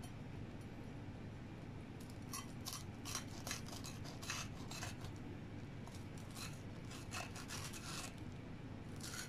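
Kitchen knife sawing back and forth through a bread pizza on a plate: a run of short, faint, scratchy strokes beginning about two seconds in.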